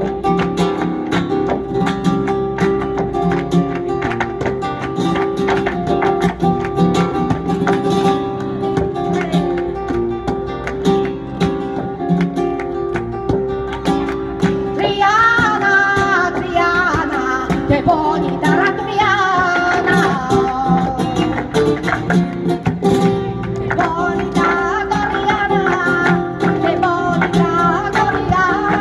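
Flamenco music: acoustic guitar strumming a steady rhythm, joined about halfway through by a voice singing a wavering, ornamented melody.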